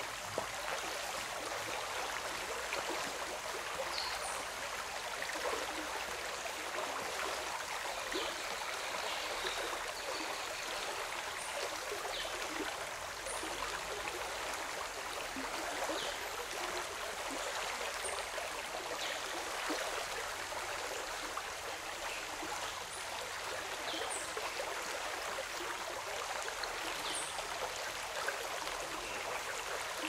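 Shallow forest stream flowing with a steady rush of water, with faint, short, high-pitched sounds scattered through it every few seconds.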